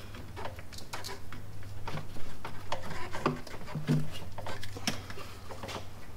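Irregular clicks, knocks and clatter of hand tools and metal parts being handled during an engine teardown, with a few short squeaks, over a steady low hum.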